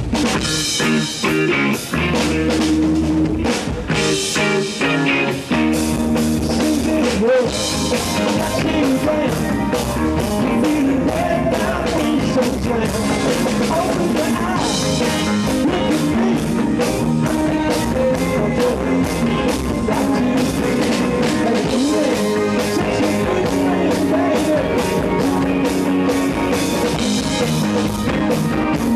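A rock band playing a song live, with drum kit keeping a steady beat under electric guitar and bass.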